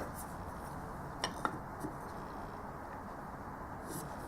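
Quiet room hiss with two light clicks a little over a second in, as a small hard object is handled.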